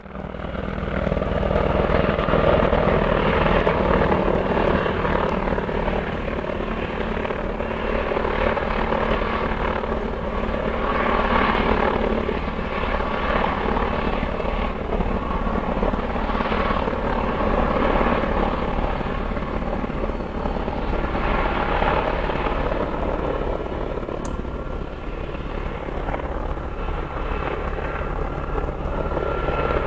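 Mi-38-2 helicopter flying past overhead: its rotor and turbine engines make a continuous drone with steady low tones, swelling and easing a little in loudness.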